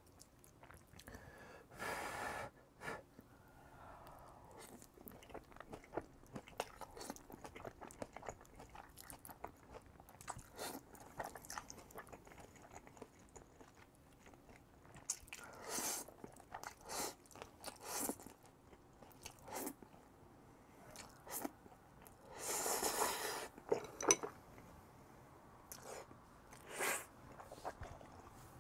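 Close-miked eating of jjajang ramyeon noodles: wet chewing with small clicks, broken by several short, louder slurps.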